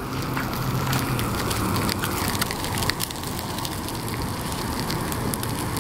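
Trout fillet frying in a pan on a camp stove: a steady sizzle with faint scattered ticks.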